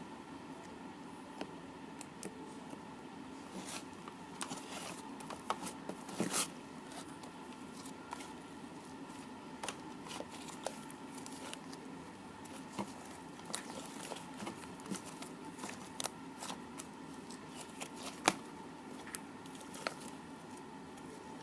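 Scattered small clicks, taps and rustles of hands handling small objects, over a faint steady hum.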